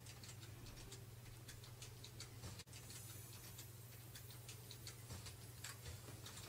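Typing on a computer keyboard: faint, irregular key clicks several a second, over a steady low hum.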